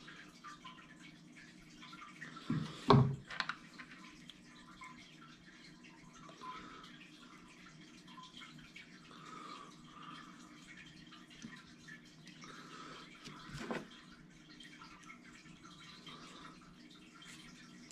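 Quiet handling of a small metal crimp eye connector, nylon cord and tools, with sharp knocks about three seconds in and again near fourteen seconds, over a faint steady hiss and hum.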